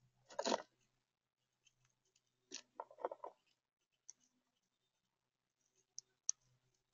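A gray squirrel rummaging in a plastic tub of acorns: acorns clatter and shift in a burst about half a second in and again around three seconds. A few sharp clicks follow near the end as it gnaws an acorn shell.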